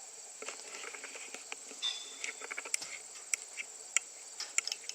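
A steady high-pitched chirring of crickets, with irregular light clicks and taps scattered over it.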